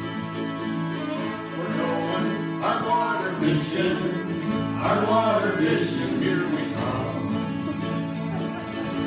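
Live acoustic band music led by a strummed acoustic guitar, with a group of voices singing along, mostly in the middle few seconds.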